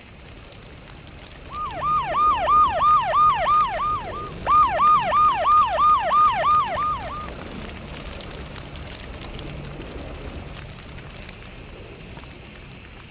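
Emergency-vehicle siren in a fast yelp, its pitch swooping rapidly about three times a second. It comes in two runs with a brief gap between them and stops a little past halfway, over a steady background hiss.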